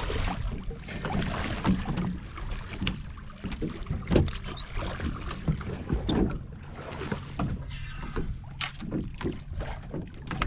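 Water splashing and sloshing as a snorkeler swims up alongside a fiberglass boat, with water lapping against the hull and irregular sharp splashes and knocks throughout.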